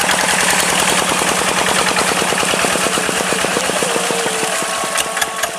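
Farm tractor's diesel engine running with a fast, even chugging. A steady tone joins about four seconds in.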